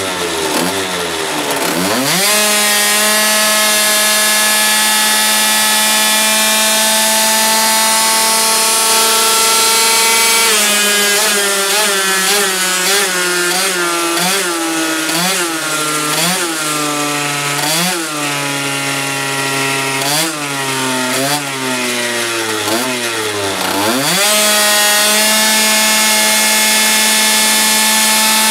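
Tuned two-stroke scooter engine (Polini Evo 1 cylinder, 24 mm Dellorto carburettor, Polini For Race expansion exhaust) screaming at high revs under load on a rolling-road dyno. The revs climb fast in the first two seconds and hold steady and high, then wobble up and down about once a second while slowly sagging, dip sharply near the end and climb back to a steady high pitch.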